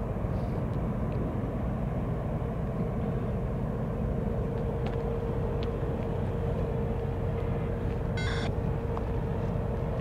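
Steady low rumble of a parked freight train's diesel engines idling, with a steady hum over it. A brief high chirp about eight seconds in.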